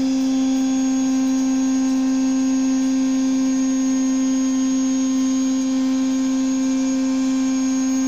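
Table-mounted router running at full speed with a steady high whine while it cuts a groove along a tulipwood door rail fed past the bit.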